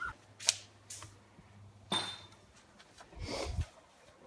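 A few faint, sharp clicks and knocks over a low hum that stops about two seconds in, then a soft muffled thump a little past three seconds.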